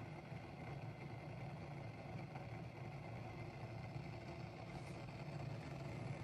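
Steady low rumble of water simmering in the heated metal boiler of a Belgian balance siphon coffee maker, building pressure before it pushes the water over to the coffee.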